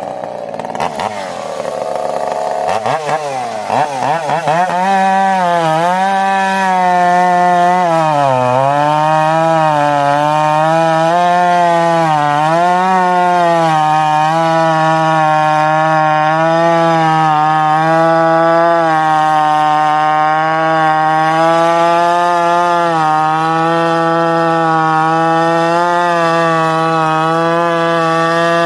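Echo CS-590 two-stroke chainsaw engine running loud and at high revs. It climbs unevenly in pitch over the first few seconds, sags and recovers a few times, then holds a steady high pitch.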